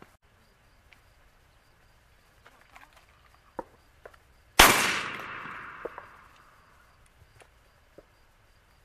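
A single shotgun shot fired skyward at a flying dove, about halfway through, its report rolling away over about two seconds.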